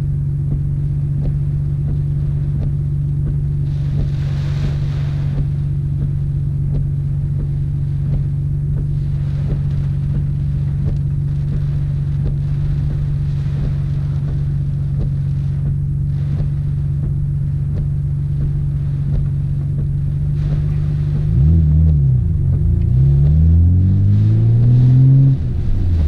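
Nissan Skyline GT-R R32's twin-turbo straight-six engine, heard from inside the cabin, running at a steady pitch. Near the end the revs climb, dip, climb again and then drop sharply as the car accelerates.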